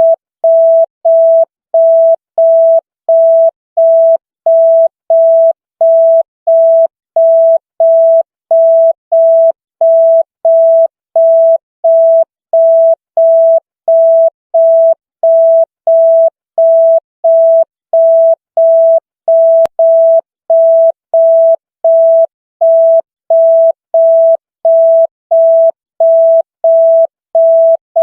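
Loud electronic signal tone beeping on and off at an even rate of about two beeps a second, each beep one steady pitch, like a telephone busy signal.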